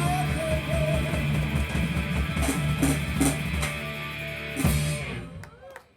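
Rock band with electric guitar and drum kit playing the closing bars of a song, ending on a final crash about five seconds in that rings out and fades.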